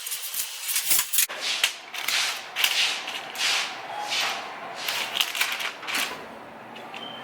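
A rapid series of rustling, scraping strokes, about two a second, starting about a second in.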